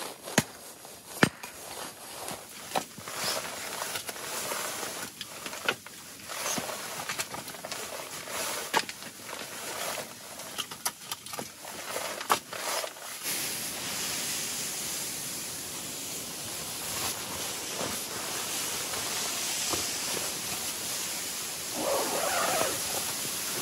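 Firewood being split into kindling: a run of sharp wooden knocks from hatchet strikes, the loudest twice near the start. About halfway through the knocks stop and a steady hiss takes over, with a brief rustle near the end.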